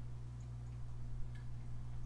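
Quiet room tone: a steady low hum, with a few faint ticks around the middle.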